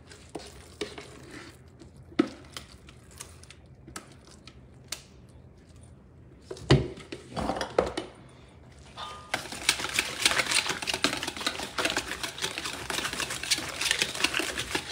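Wire whisk beating a mayonnaise dressing in a large stainless steel bowl: quick, rapid clicking against the metal starts about nine seconds in. Before that there are only scattered taps and a few louder knocks while more mayonnaise goes into the bowl.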